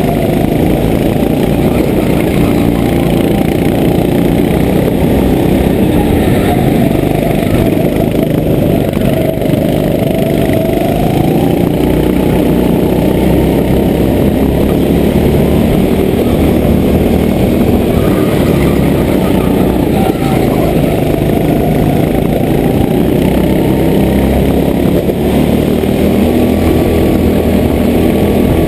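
Go-kart engine heard from on board while the kart laps, running loud and continuous. Its pitch dips and climbs again several times as the kart slows for corners and accelerates out of them.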